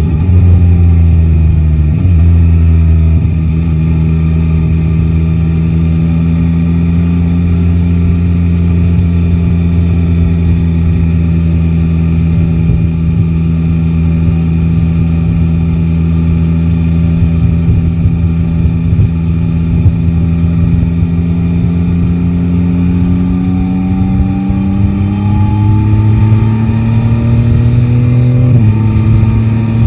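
Yamaha Tracer 9 GT's 890 cc inline three-cylinder engine running at steady revs under way. Near the end it revs up for several seconds, drops sharply at an upshift, then pulls again.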